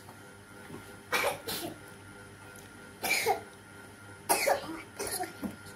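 A young child coughing in about five short bursts, spread out with pauses between them.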